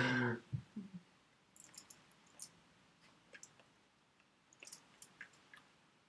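A brief voiced sound from a person in the first second, then faint, scattered clicks and smacks from a person signing in British Sign Language.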